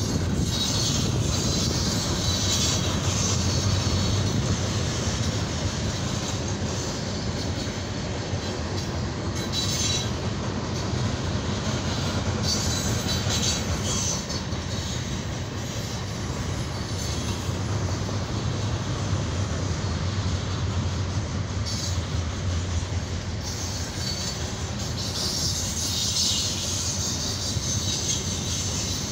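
Freight cars of a trash train rolling past, a steady rumble of steel wheels on rail. High squealing from the wheels comes and goes several times, strongest near the start, in the middle and near the end.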